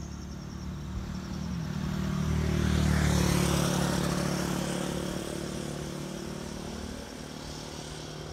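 A vehicle passes unseen, its sound swelling to a peak about three seconds in and fading away. Crickets chirp faintly near the start and again near the end.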